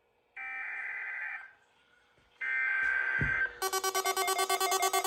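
Emergency Alert System SAME header data tones: two shrill digital warbling bursts of about a second each, with a pause between. After about three and a half seconds a louder, rapidly pulsing mix of alert tones begins, and a steady single tone joins it near the end.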